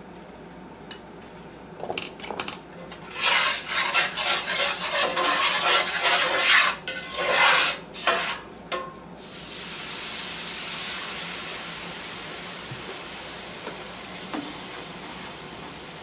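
A spatula scrapes and stirs a hot flour-and-oil roux in a cast iron skillet in a quick run of strokes. About nine seconds in, cold milk is poured into the hot roux and a steady sizzle takes over, slowly fading as the milk gravy starts to form.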